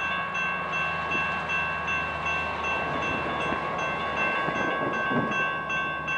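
A bell ringing steadily, about two to three strikes a second, over the rumble of an approaching Union Pacific freight train.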